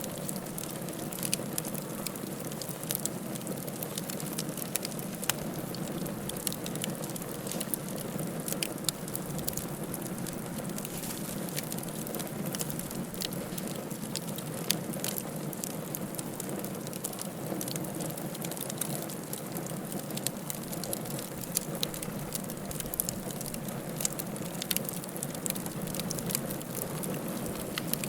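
Wood fire in a fireplace crackling steadily: many irregular sharp pops and snaps over a constant soft hiss of the flames.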